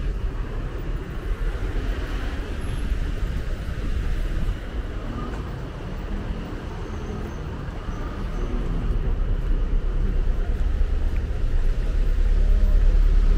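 City street ambience: a steady rumble of road traffic with faint voices of passers-by, growing louder near the end.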